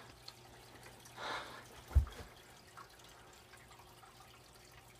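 Faint aquarium water trickling and dripping, with a brief soft rush about a second in and a single low thump at about two seconds.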